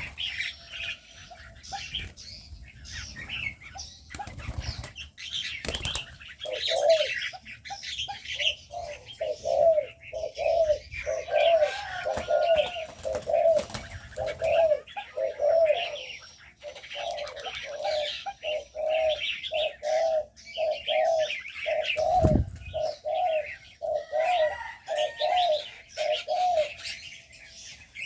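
Spotted doves cooing in an aviary, a long run of short coos about two a second, over the chirping of small cage birds. A few wingbeat thumps from birds flapping.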